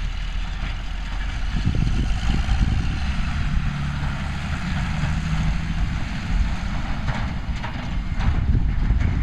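Farm tractor's six-cylinder diesel engine running steadily as it drives past towing a silage trailer.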